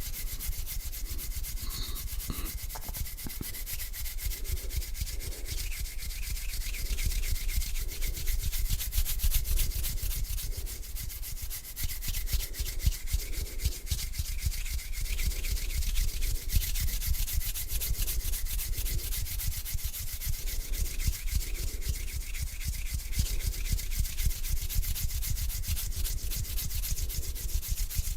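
Bare hands rubbing together slowly, a continuous dry, scratchy rubbing noise that swells with each stroke, roughly one stroke a second.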